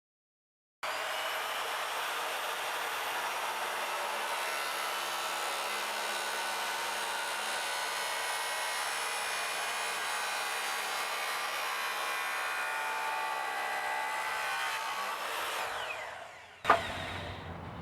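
Electric miter saw with a compound blade running steadily while cutting PVC pipe, then its motor winding down with a falling whine near the end. A single sharp click follows.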